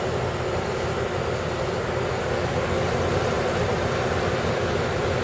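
Friedrich YS10N10A 9,500 BTU window air conditioner running with its compressor on and fan blowing, a steady hum and rush of air.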